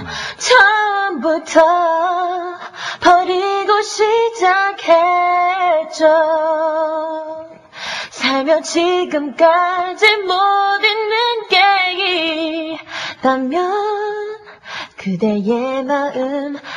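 A woman singing solo and unaccompanied in a live vocal, holding and sliding between notes, with short breaths between phrases.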